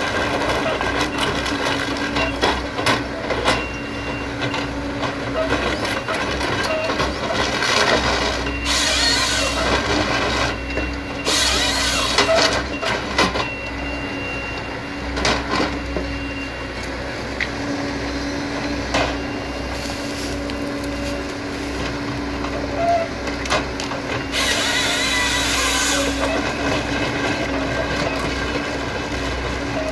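A Hitachi ZX138MF-5G forestry excavator runs steadily under hydraulic load while its Kesla 25RH harvester head feeds and processes eucalyptus stems. Repeated clacks and knocks come from the head, with three spells of louder rushing noise, each a second or two long, about nine, eleven and twenty-four seconds in.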